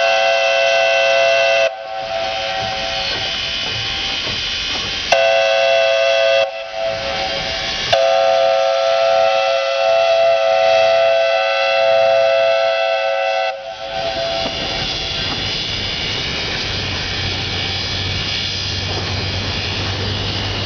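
QJ 2-10-2 steam locomotive's whistle sounding a chord of several notes in three blasts: one ending under two seconds in, a short one around five seconds, and a long one from about eight to nearly fourteen seconds in. Between and after the blasts come steady steam hiss and the rumble of the departing locomotive and its train.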